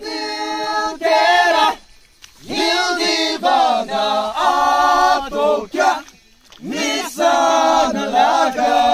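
Voices singing together a cappella like a choir, in sustained phrases that break off briefly twice.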